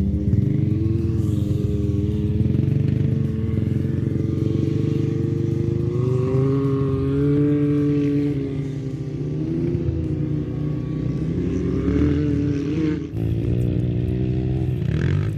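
A motor or engine running steadily throughout, its pitch wavering slowly up and down.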